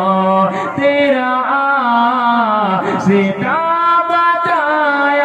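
A man singing an Urdu devotional naat solo into a microphone, drawing the words out in long held notes that glide from pitch to pitch.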